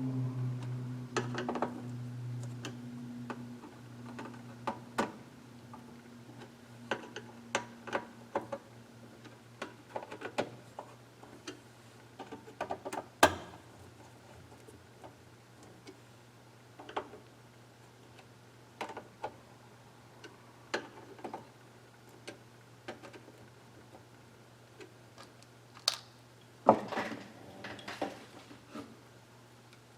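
Scattered small clicks and taps of electronic parts and hand tools being handled on a workbench, the sharpest about 13 s in and a cluster near the end, over a faint steady hum.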